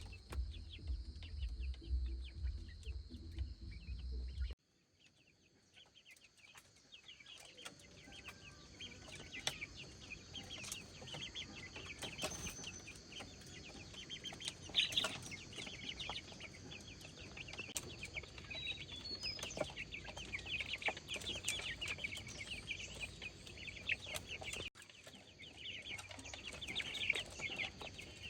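Chickens clucking and calling, many short calls in quick succession. A low rumble underneath cuts off suddenly about four and a half seconds in.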